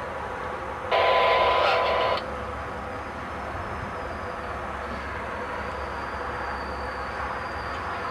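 A short burst of radio static with a steady tone in it comes about a second in and lasts just over a second, starting and stopping abruptly. Under it is the low rumble of an electric commuter train approaching.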